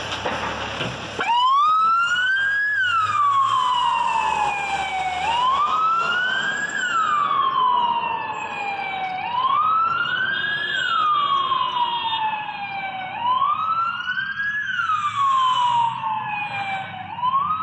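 Ambulance siren switched on about a second in, sounding a slow wail: each cycle climbs quickly, then falls off more slowly, repeating about every four seconds.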